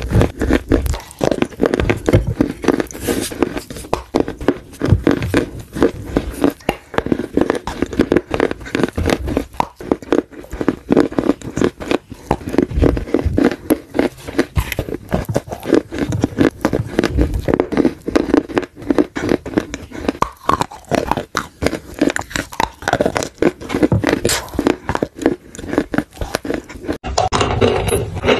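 Dry clay being bitten and chewed close to the microphone: a dense, fast run of crisp crunches and crackles. About a second before the end the crunching changes character as another piece of clay is handled.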